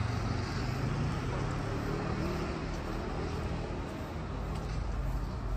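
Road traffic noise: a steady rumble of passing cars.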